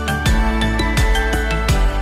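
Instrumental background music with a steady beat of drum hits and sustained tones.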